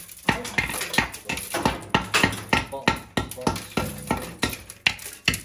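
Rapid metallic clattering and knocking, about four sharp knocks a second, as a flexible metal flue liner is worked into place.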